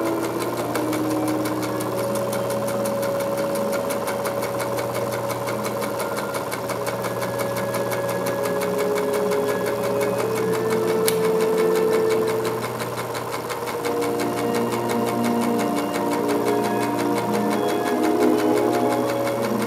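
Film projector running with a rapid, even mechanical clatter, under held droning tones that shift pitch every few seconds.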